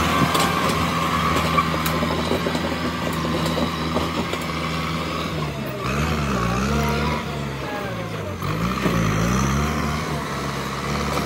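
Kubota M8540 tractor's diesel engine running while its front blade pushes soil. Twice in the second half the engine pitch dips and comes back up as it lugs under the load.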